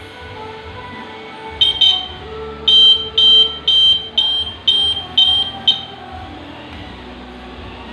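D'mex alarm system's buzzer beeping while the alarm is being set: two quick chirps, then a run of seven sharp, high beeps at about two a second. Background music plays underneath.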